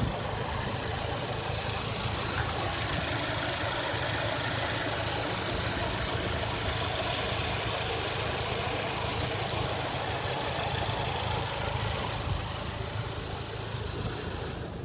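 A 2015 Volkswagen Golf GTI's EA888 2.0-litre turbocharged four-cylinder idling steadily, heard from the open engine bay. A faint high-pitched whine runs steadily above the engine sound.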